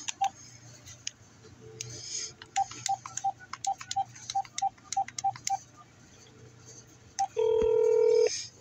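Phone keypad beeping as a number is dialed, a quick run of about a dozen short tones with small taps. Near the end comes one louder, lower tone about a second long.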